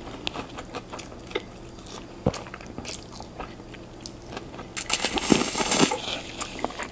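Close-up mouth sounds of eating chow mein noodles: wet clicks and chewing throughout, with a loud, hissing slurp of noodles about five seconds in that lasts about a second.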